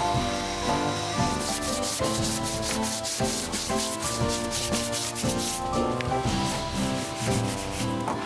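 Sandpaper rubbing over the metal of a gas tank in quick, even strokes, the stroking strongest through the middle of the stretch, with background music playing over it.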